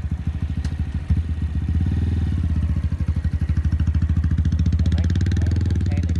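Honda Grom's 125 cc single-cylinder four-stroke engine running close by at idle, its exhaust pulses steady and even, with a short sharp peak about a second in and a slightly louder note from about two seconds in.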